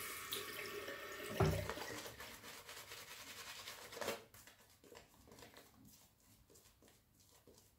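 Tap water running into a sink for about four seconds, then stopping, with a dull knock about a second and a half in.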